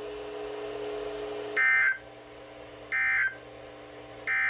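NOAA Weather Radio end-of-message signal: three short identical bursts of warbling digital data tones, about a second and a half apart, over a faint steady low hum. The bursts mark the close of the Required Weekly Test.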